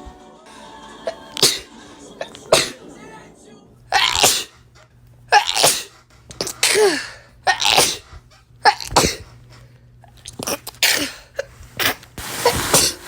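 A person sneezing over and over, about a dozen sharp sneezes roughly a second apart.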